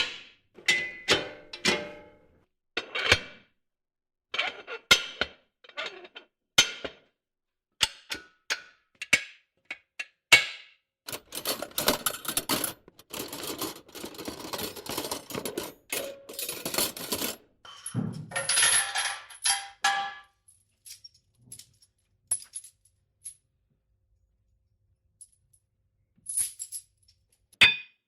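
A series of gym equipment sounds: metal weights and bars clinking and clanking in short separate hits. A denser run of rattling comes in about eleven seconds in and lasts about six seconds, followed by a ringing metallic sound. After a mostly quiet stretch, a few more hits come near the end.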